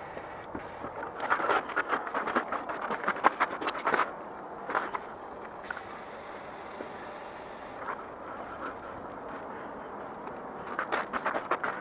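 Shoes crunching on loose gravel as someone steps around a bicycle, in bursts early on and again near the end. About halfway through comes a faint hiss of about two seconds from an aerosol lubricant spray directed at the bike's rear hub.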